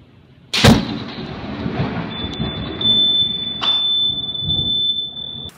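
Close lightning strike: a sharp crack of thunder about half a second in, then rolling, rumbling thunder with a second sharp crack about three and a half seconds in. A steady high-pitched tone sounds over the thunder from about two seconds in.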